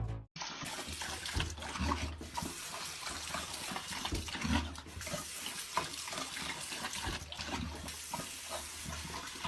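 Water running steadily, as from a tap, with small irregular knocks.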